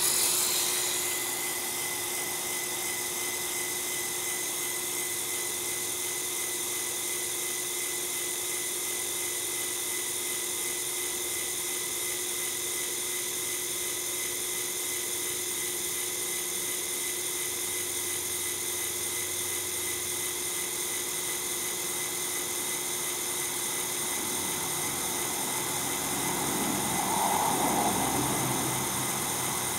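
Small electric motor of a Lego Technic 8258 crane truck running steadily through its plastic gear train as it moves the crane boom, a constant whine. Near the end it grows louder for a couple of seconds.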